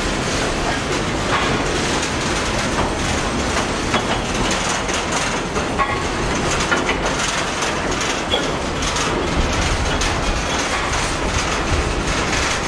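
Covered hopper wagons of a freight train rolling slowly past: steel wheels rumbling and clicking on the rails, with a few brief squeaks.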